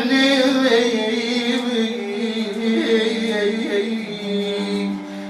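A singer holds one long, wavering, ornamented note in an Arabic song over a steady held accompaniment, growing fainter near the end.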